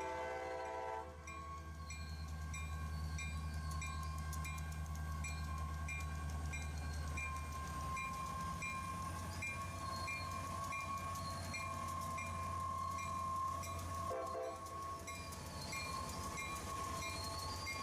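CSX diesel locomotive running with a steady low engine rumble as it gets ready to pull forward. A multi-note horn chord ends about a second in, and a short horn note sounds near the end. A regular high ding repeats about twice a second throughout.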